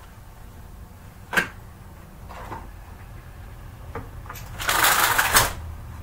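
Bedding handled as a bed is made: a sharp knock about a second in, then a loud rustling swish of fabric lasting about a second near the end.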